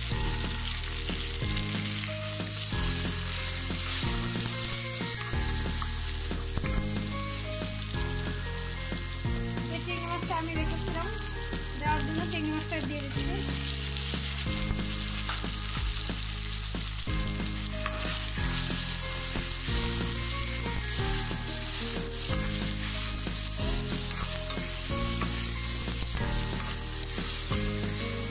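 Chopped onion, green chillies and small shrimp sizzling steadily in hot oil in a steel wok, with a spatula stirring through them.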